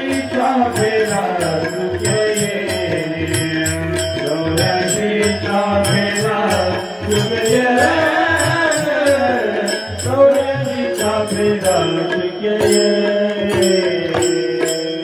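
Devotional chant sung by a lead singer and the seated congregation, accompanied by harmonium drones and tabla strokes.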